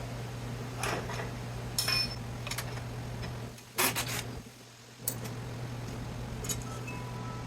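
Metal scrap parts from an electrical panel being handled, with several separate clinks and scrapes and the loudest knock about halfway through, over a steady low hum.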